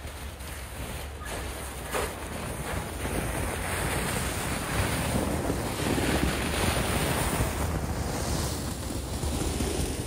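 Lexus GX470's V8 engine running as the SUV drives slowly past through deep snow, its tyres pushing and crunching through the snow. The sound grows louder over the first few seconds as the vehicle comes close, then holds.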